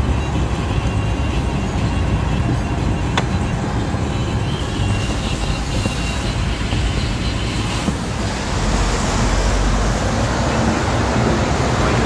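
Road noise from inside a moving vehicle: a steady engine and tyre rumble on a wet road, with the hiss growing about eight seconds in, and a single sharp click about three seconds in.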